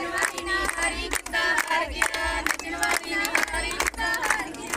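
A group of women singing Punjabi boliyan (folk couplets) for a giddha dance, with steady rhythmic hand clapping from the circle around them.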